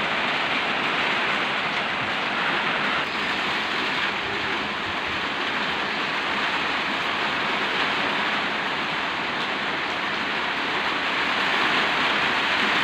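Heavy rain driven by strong wind: a steady, loud rush of noise with no breaks, swelling slightly near the end.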